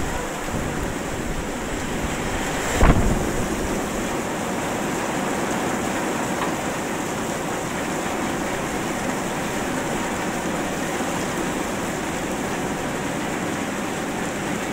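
Heavy thunderstorm downpour: a steady rush of rain, with one sudden loud bang about three seconds in.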